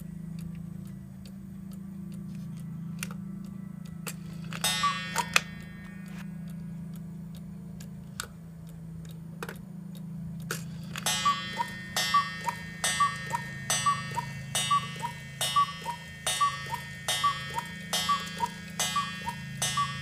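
Mechanical cuckoo clock ticking steadily. About five seconds in it gives one two-note cuckoo call, then from about eleven seconds a run of cuckoo calls follows, repeating less than a second apart.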